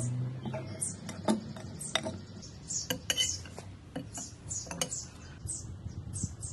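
A metal spoon stirring and tossing a plum and herb salad in a glass bowl, with sharp clinks against the glass now and then over soft, repeated swishing of the wet fruit and herbs.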